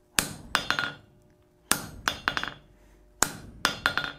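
Hand hammer striking the head of a round veining butcher tool held in tongs on hot steel on the anvil, steel ringing on steel. The blows come in three clusters of four or five quick strikes about a second and a half apart, as the tool radiuses the bar's outside edges.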